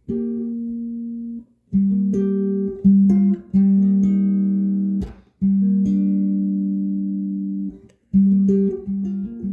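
Electric guitar with Seymour Duncan Zephyr humbucker pickups playing chords and notes that ring for a second or two each and are then cut off short, with a sharp click about five seconds in.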